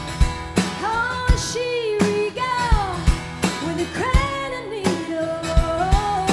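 Live band playing a song: a woman singing long, gliding notes over guitar and a drum kit beat.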